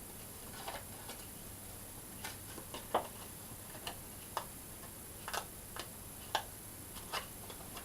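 Light, irregular clicks and taps of a card favour box being folded along its creases and pressed together by hand, the loudest tap about three seconds in.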